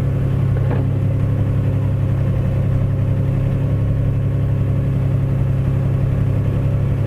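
Bobcat 331D mini excavator's diesel engine running at a steady speed, a constant low drone with no revving.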